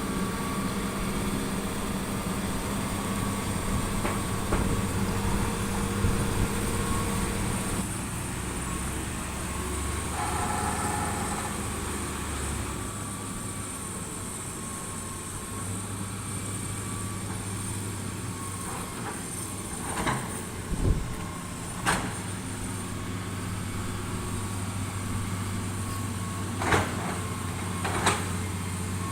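Heavy construction machinery's engine running steadily, with a few sharp metallic clanks in the second half.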